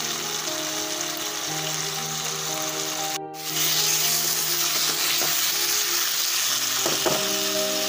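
Boiled mango pieces sizzling in hot oil in a frying pan as they are stirred, with soft background music of held notes underneath. The sound drops out briefly a little over three seconds in, and the sizzle is louder after the break.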